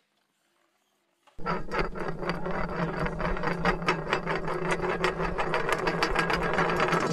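Small electric motors of 3D-printed antweight combat robots whirring steadily with a rapid, dense clatter, starting abruptly about a second and a half in after near silence.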